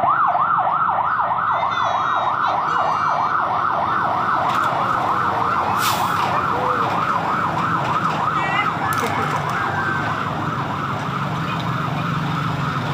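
Fire truck siren sounding a fast yelp, sweeping up and down several times a second and growing fainter after about eight seconds, over the low rumble of motorcycle engines.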